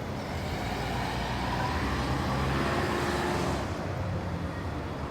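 A road vehicle driving past: tyre and engine noise swells to a peak about three seconds in, then falls away, over a steady low traffic rumble.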